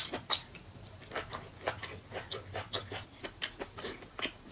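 Close-up wet chewing and lip smacking on a mouthful of oily mutton curry and rice: a run of irregular sharp clicks, a few a second, loudest at the start.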